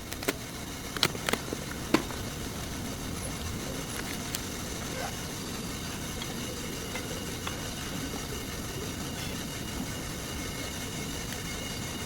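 Car running with a steady hum and a faint high whine. A few sharp clicks come in the first two seconds.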